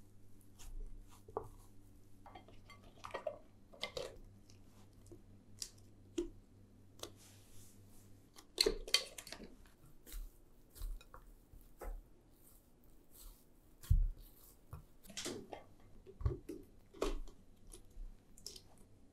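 Bread dough being kneaded by hand in a glass bowl: soft squishing and slapping of the dough with irregular knocks of the bowl, the loudest thumps about fourteen and sixteen seconds in. Near the end a silicone stretch lid is pulled over the bowl.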